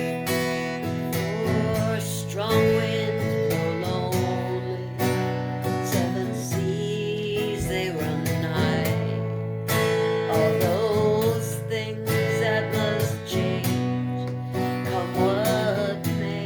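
Acoustic guitar strumming steady chords in a slow country-folk song, with a wavering melody line over it in several phrases.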